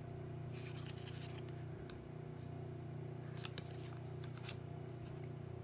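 Trading cards being handled: a few brief rustles and light clicks as cards slide over one another and are set down, over a steady low hum.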